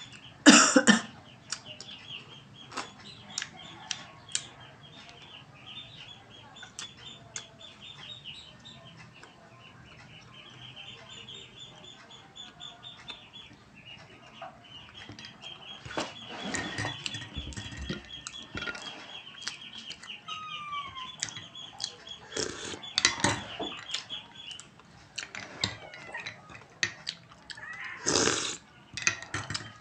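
Close-up eating sounds: chewing and mouth clicks as a cupcake is eaten, with a few louder rustles as its paper liner is peeled. A steady high chirping runs underneath, breaking off briefly about halfway.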